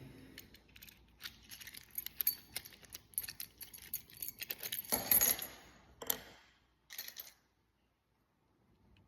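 Metal keys and lock-cylinder parts clicking and clinking as they are handled during a rekey, with a louder scrape about five seconds in; the handling stops about seven seconds in.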